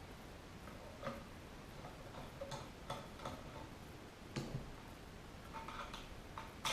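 Faint, irregular metallic clicks and taps from small steel parts and screws of a Marlin 1894 lever-action rifle being handled during disassembly, about half a dozen of them, the sharpest one at the end.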